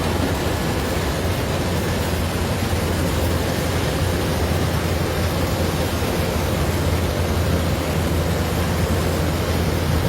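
Kubota DC-105 rice combine harvester running steadily: a constant low engine drone with a rushing machinery noise over it.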